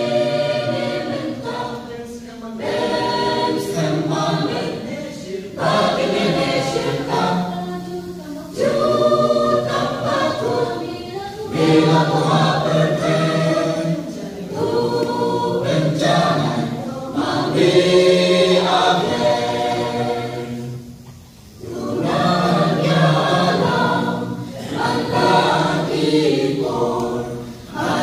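Mixed choir of young men and women singing a hymn in parts, unaccompanied, in sung phrases with short breaks for breath and a longer pause about three-quarters of the way through.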